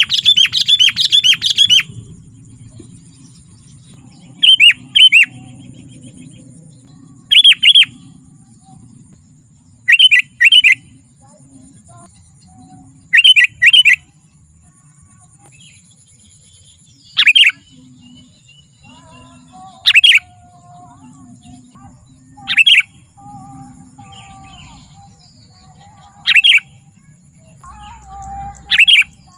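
Sooty-headed bulbul (kutilang) calling: a quick run of repeated chirps at the start, then short loud two- or three-note calls every few seconds. A faint steady high tone runs underneath.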